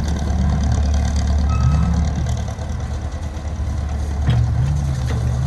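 Engine running steadily with a low hum.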